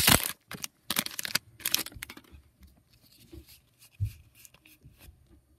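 Foil wrapper of a Magic: The Gathering booster pack being torn open and crinkled, loudest at the start, with a few shorter crinkles over the next two seconds. After that, only faint ticking and rustling of trading cards being handled.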